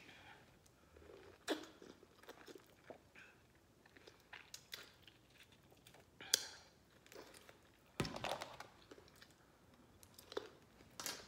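A person biting into and chewing raw lemon wedges, with irregular sharp clicks and smacks at the mouth; the strongest come about six and eight seconds in.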